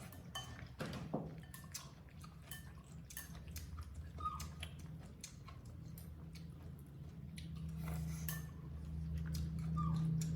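Light clinks, knocks and scrapes of a plate and cutlery being handled, a scatter of small sharp clicks, over a steady low hum.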